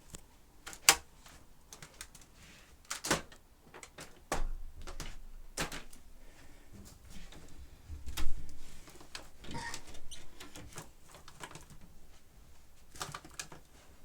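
Irregular clicks and knocks of handling, with sharp knocks about a second in and around eight seconds, and no vacuum motor running.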